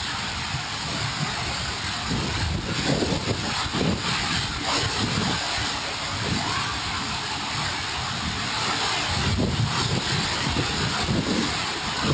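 Steady rush of water inside an enclosed water-slide tube, loud enough to drown out talk.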